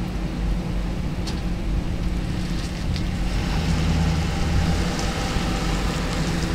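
A vehicle engine idling steadily with a low hum, its pitch shifting slightly upward about three and a half seconds in.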